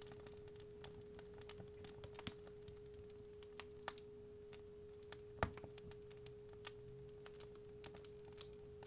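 A steady 417 Hz sine tone over a fireplace fire, with faint irregular crackles and snaps from the burning wood and one louder pop about halfway through.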